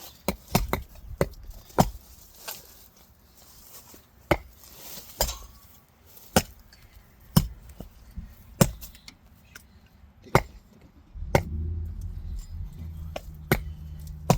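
Axes chopping into logs: sharp, separate wood-splitting strikes about once a second, some in quick succession near the start. A low steady hum comes in under the strikes about eleven seconds in.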